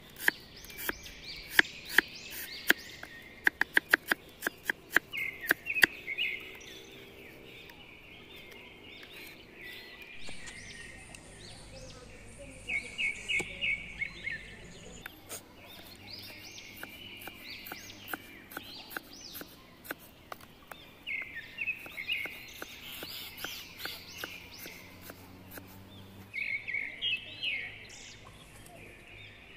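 Steel cleaver chopping red onion on a wooden board: a quick run of strokes over the first six seconds, then only occasional single cuts as tomatoes are sliced. Birds chirp on and off throughout.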